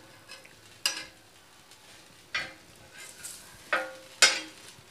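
Steel spatula scraping and tapping on a tawa about four times as eggplant slices are moved and pressed, over a faint sizzle of the slices shallow-frying in a little oil.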